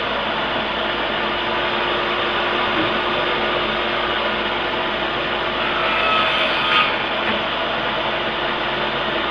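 Portable table saw running steadily as oak pallet slats are fed through it.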